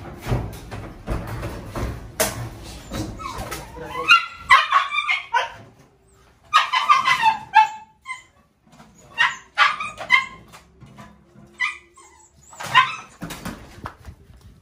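A dog barking and yelping in short repeated bouts, after a few seconds of knocks and rustling.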